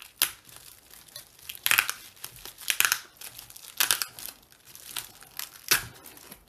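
Packaging wrap crinkling and tape tearing as a speaker is unwrapped, in about five short bursts of rustling with quieter handling noise between.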